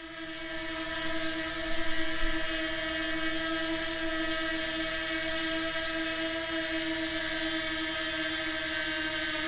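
DJI Mini 2 quadcopter's four motors and propellers whirring in flight at a steady pitch, rising in level over the first second and then holding steady.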